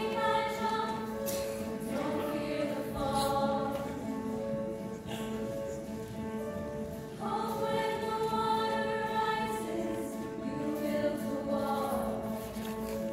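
Mixed-voice high-school choir singing held chords in phrases, heard from the audience seats of an auditorium.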